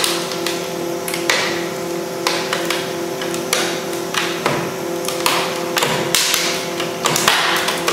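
Plastic housing of a video camera cracking and snapping under the slow squeeze of a compression testing machine: irregular sharp cracks every half second to a second, some ringing briefly, over a steady hum.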